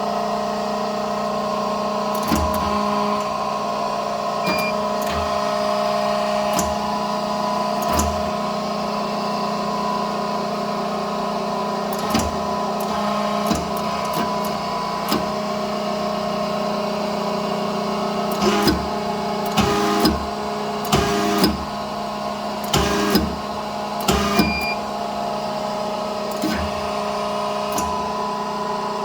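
Side-open electric hydraulic hose crimping machine running during a test crimp: a steady motor-and-pump hum, with sharp clicks and knocks, a run of louder ones about two-thirds of the way through.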